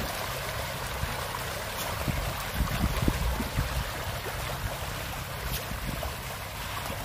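A large school of pond fish churning and splashing at the water's surface, a steady crackling hiss like rain on water. Low buffeting on the microphone comes and goes, strongest around the middle.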